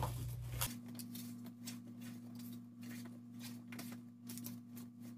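Faint rustling and soft clicking of hands tossing oiled, seasoned cut vegetables (bell pepper rings, broccoli, corn) on parchment paper. A thin steady hum joins in about a second in.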